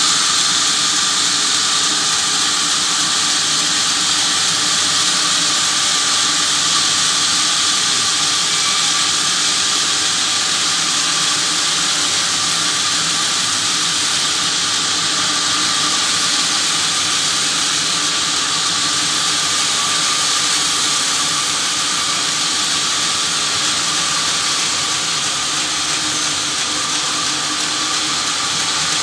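Trolley band-saw mill running steadily, its blade cutting a log carried on the trolley: a loud, even hiss that holds without a break.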